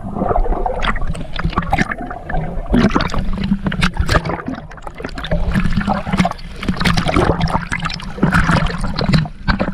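Water splashing and gurgling close to the microphone, in irregular crackling spurts, over a steady low hum.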